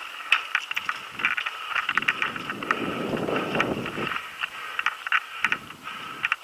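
Mountain bike rattling over a rough dirt trail on a descent, with quick irregular clicks and clatter. Wind buffets the microphone in the middle and again briefly near the end.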